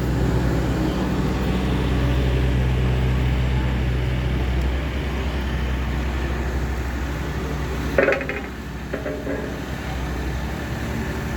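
An engine running steadily with a low hum, easing a little about halfway through. A short, higher-pitched sound cuts in about eight seconds in.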